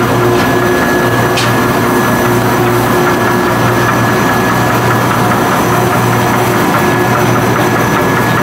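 Gonderflex DBX narrow-web flexographic label press running: a steady mechanical hum with a high, steady whine, and a light, fast ticking from about halfway through.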